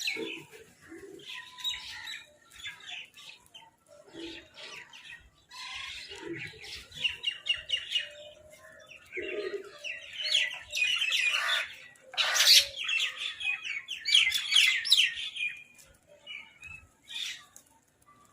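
Crows and mynahs calling while squabbling over food: repeated bursts of rapid chattering calls, the loudest about twelve seconds in.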